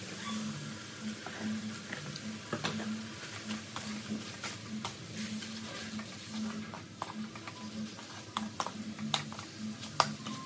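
Wooden spatula scraping and knocking against a metal wok during stir-frying, a run of irregular clicks and taps, the sharpest near the end. Faint background music runs underneath.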